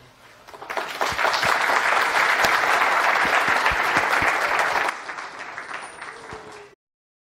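Audience applauding: the clapping swells within the first second, holds steady for about four seconds, then thins out and cuts off suddenly near the end.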